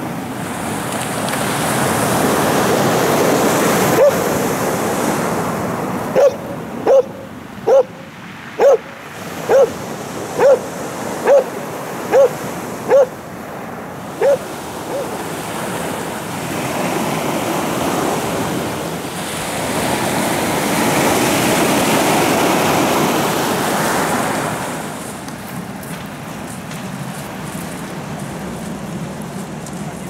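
A dog barking about a dozen times, roughly once a second, over surf washing onto a pebble beach; the waves swell louder twice.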